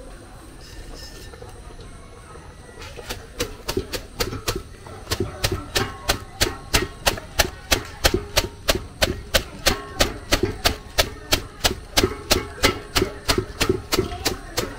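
A small bundle broom beating and whisking cooked jute leaves (ewedu) in an aluminium pot, mashing them into soup. The bristles knock against the pot in a fast, even rhythm of about three to four strokes a second, starting about three seconds in.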